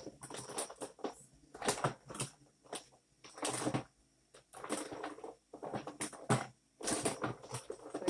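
Irregular rustling and light clacking of small makeup items being handled and rummaged through close to the microphone, in short uneven bursts with brief pauses.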